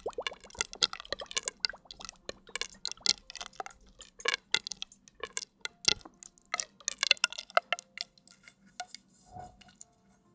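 Rapid, irregular tapping and clicking close to the microphone, with a few light clinks that ring briefly. It thins out to scattered taps near the end.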